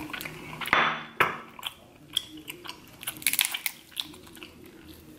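Close-up eating sounds from a seafood boil: wet chewing and mouth clicks, with sauce-covered food being squished and pulled apart by hand. A short louder rush of noise comes about a second in, and a flurry of wet clicks follows around three seconds in.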